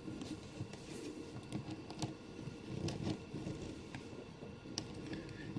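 Faint light clicks and taps of plastic action figures and their toy chain being handled and posed by hand, a few scattered small knocks.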